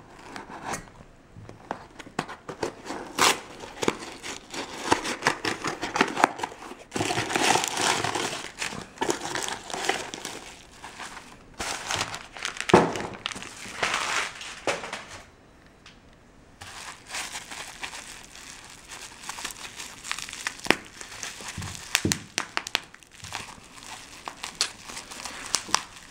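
Cardboard mailing box being slit with a knife and opened by hand, then rustling and crinkling of packing material and bubble wrap being pulled off, with scattered sharp crackles. There is a brief lull a little past the middle.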